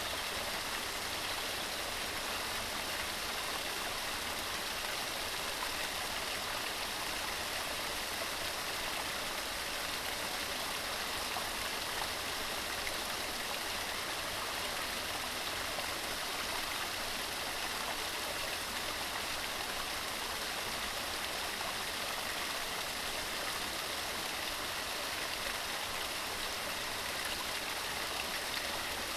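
Mountain stream running steadily over rocks, a continuous even rush of water.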